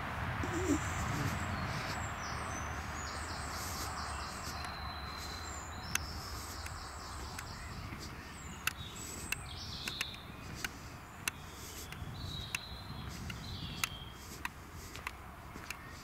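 Woodland birdsong: several songbirds singing with many short, high chirps and warbles over a steady background hiss. In the second half, regular sharp clicks come about every two-thirds of a second.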